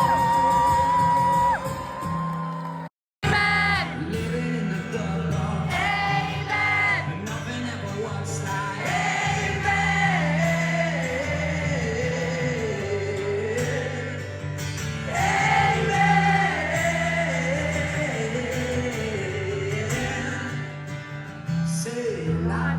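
Live acoustic music: a sung voice over acoustic guitar accompaniment. The sound drops out completely for a moment about three seconds in, then the singing and playing resume.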